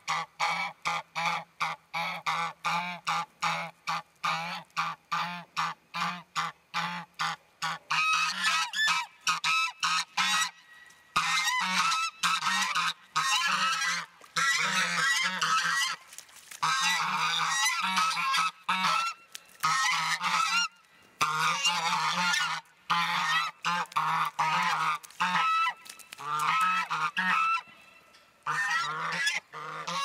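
A flock of four domestic geese honking excitedly. It starts as a fast run of short honks, about three a second; from about eight seconds in, several geese honk over one another almost without a break, with a few short pauses.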